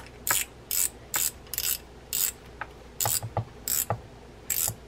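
Front drag adjuster knob of a Daiwa Crossfire 3500 3i spinning reel clicking as it is turned and tightened down on the spool, a crisp click about twice a second.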